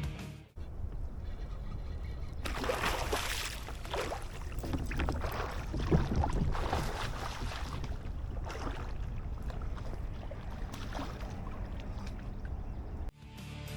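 Water splashing and sloshing around a kayak, with scattered knocks and one sharper splash or knock about six seconds in, over a low steady rumble.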